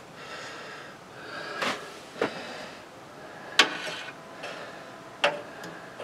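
Scattered sharp metallic clicks and taps, four in all, of a screwdriver and screws working inside a PC case as the motherboard is screwed down to its standoffs.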